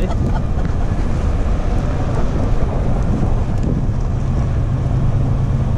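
Wind buffeting the microphone: a loud, steady low rumble, with a steady low hum joining it about halfway through.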